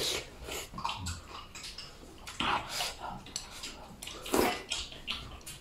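Someone eating noisily from a bowl with chopsticks: a series of wet slurps and chewing sounds, with chopsticks knocking against the bowl.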